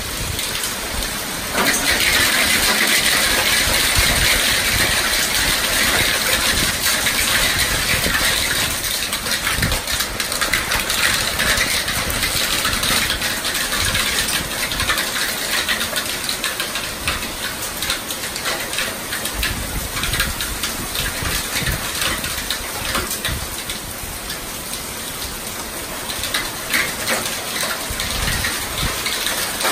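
Hail and heavy rain pelting the pavement and parked cars: a dense, steady hiss full of countless small clicking impacts, which gets louder about two seconds in.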